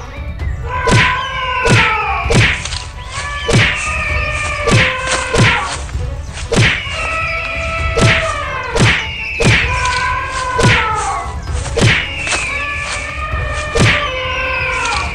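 Looping cartoon fight soundtrack: sharp thuds and whacks about once or twice a second, with a pattern of falling tones that repeats every two and a half seconds or so.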